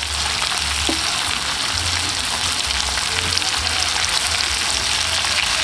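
Pork meatballs (bola-bola) frying in butter in a pan: a dense, steady sizzle that comes in suddenly at the start.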